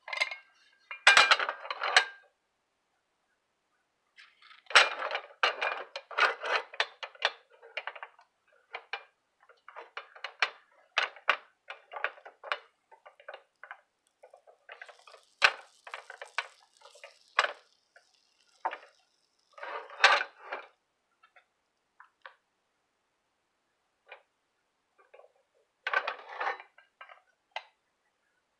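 Irregular clattering, knocking and scraping of a hinged nonstick hot sandwich maker being handled: plates and handles knocking as it is opened and closed, and butter in its paper wrapper rubbed over the hot plates. A faint hiss midway is butter sizzling on the heated plates.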